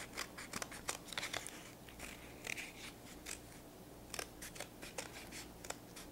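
Small scissors snipping through a flattened two-layer cardboard toilet paper roll: a string of quiet, irregular short snips as the blades work around a curved outline.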